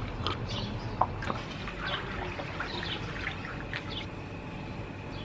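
Small birds chirping on and off over the gentle lapping and trickle of pool water, with one sharp click about a second in.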